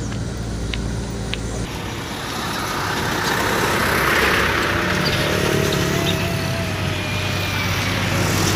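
Heavy trucks passing close by on a road: engine and tyre noise that swells a few seconds in and stays loud, with a thin whine in the middle.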